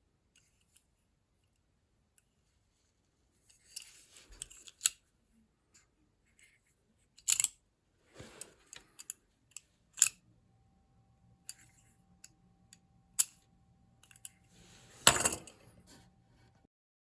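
Sharp metallic clicks and scrapes of a small metal tool being handled, five loud clicks a few seconds apart after a quiet start, the loudest near the end.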